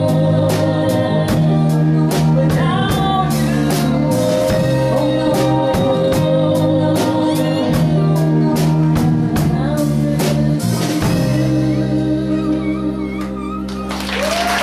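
Live band with a female lead singer: she holds long notes over bass guitar, drums and cymbals. The drumming stops about eleven seconds in and the song ends on a held chord that fades, with applause starting just before the end.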